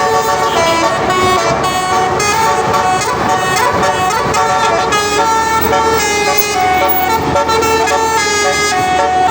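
Telolet bus horn, a set of multi-tone horns, playing a tune as a steady run of long notes that step from pitch to pitch.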